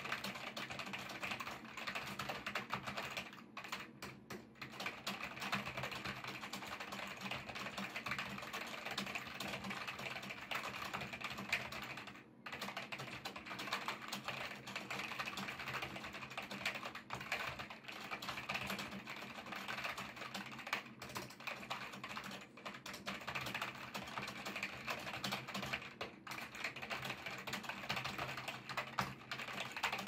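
Fast touch-typing on a computer keyboard: a dense, continuous patter of key presses. The typing thins out briefly about four seconds in and breaks off for a moment near the middle.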